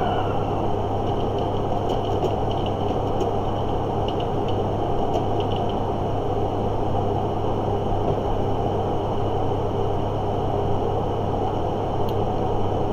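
Steady, unchanging hum and hiss of room noise, like a running air conditioner or fan, with a few faint clicks scattered through it.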